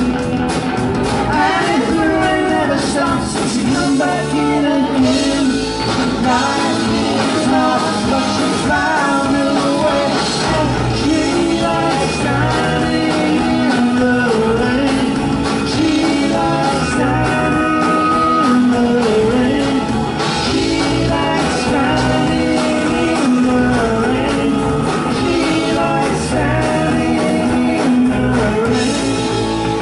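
Live rock band playing a song: sung vocals over electric guitar, bass guitar and drums.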